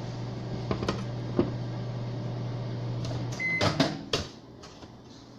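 Microwave oven running with a steady low hum, which cuts off about three and a half seconds in with a short single beep, followed by a few sharp clicks and knocks.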